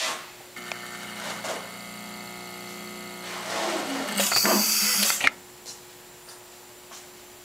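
Apollo Seiko L-CAT selective solder machine running its program: a steady motor whine as the head moves and feeds solder, then about a second of loud air hiss from the blow-off that clears excess solder from the joint, cutting off suddenly. A short hiss at the very start.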